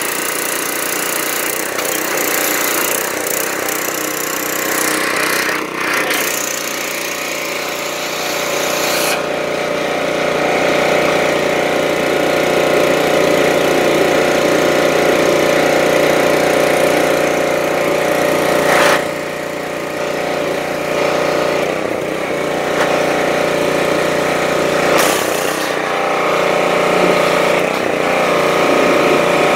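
Gas engine of a Craftsman pressure washer running steadily while its high-pressure water jet hisses against the plow's metal frame and springs. The spray's hiss changes as the jet is moved, and it drops briefly about nineteen seconds in.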